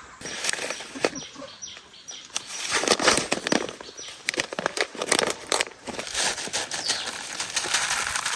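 Chickens flapping their wings and scuffling, a dense run of quick, irregular flutters and rustles.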